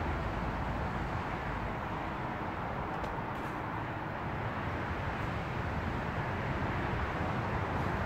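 Steady outdoor background noise, an even rumble and hiss with no distinct events.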